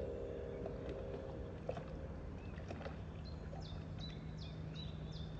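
Processed field-recording soundscape: scattered clicks and a soft rushing noise. A low steady hum comes in about one and a half seconds in, and from about three seconds in a high falling chirp repeats two or three times a second.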